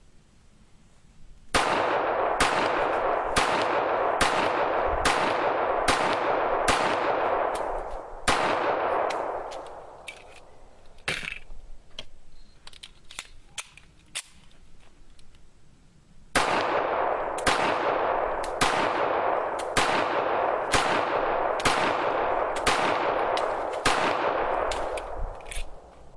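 Para-Ordnance GI Expert 1911 pistol in .45 ACP fired rapidly, in two strings of about ten shots each, roughly one or two shots a second, each shot ringing on briefly. The strings are separated by a pause of several seconds with a few small clicks.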